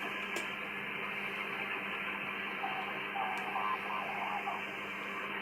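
Shortwave receiver audio from the 80-metre amateur band: a steady static hiss cut off above a few kilohertz, with a low hum running under it. Faint tones from a signal come through for about a second, midway.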